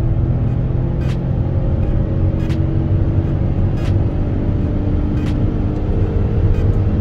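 Citroën Berlingo van's 1.2 PureTech three-cylinder turbo petrol engine running under load in third gear during a full-power test pull, heard inside the cab over road and tyre rumble. Light clicks come about every one and a half seconds.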